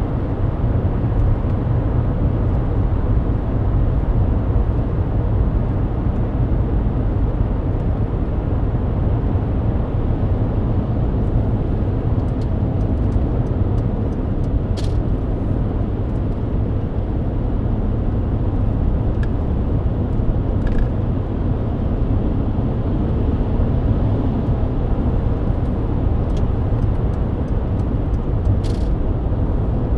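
Steady in-cabin road noise of a Mercedes-Benz W124 at highway speed on a wet road: a low rumble of tyres and engine with a hiss above it. A few faint short clicks come about halfway through and near the end.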